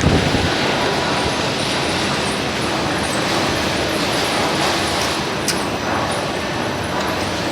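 Polyamide hose production machine running with a steady mechanical noise, with a faint steady hum and one short click about five and a half seconds in.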